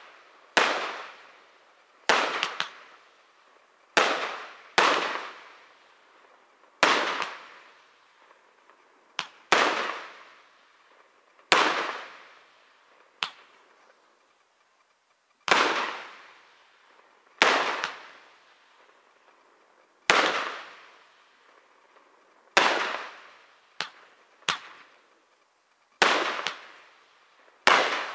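Aerial fireworks shells bursting overhead, about twenty sharp bangs spaced a second or two apart, each trailing off in a long echo, with a short lull about halfway through.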